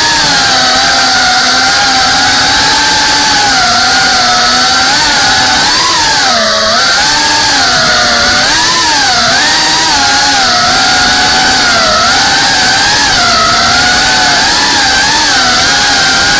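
FPV quadcopter's brushless motors and propellers whining loudly, the pitch constantly rising and falling with the throttle, dipping sharply about six and a half seconds in.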